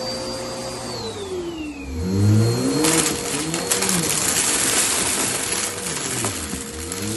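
Vacuum cleaner running over a rug. Its motor whine drops in pitch about a second in, then a louder rush of air and brush noise sets in from about three seconds in.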